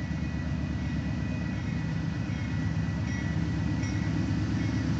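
Freight cars of a Union Pacific train rolling past: a steady low rumble of steel wheels on the rails, with a faint high tone over it.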